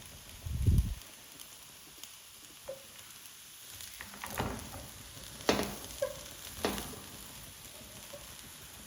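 Food simmering in a pot with a faint sizzle. There is a low thump about half a second in, then a few sharp clinks and knocks of a utensil against the pot in the second half.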